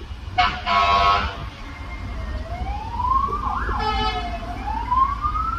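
Emergency-vehicle siren wailing, its pitch sweeping up and down slowly, with two loud horn blasts, one near the start and one in the middle.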